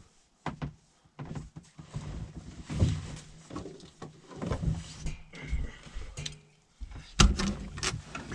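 Plastic puzzle cubes being handled and set down on a hard surface: irregular clacks, knocks and rustling, with a few sharper clicks near the end.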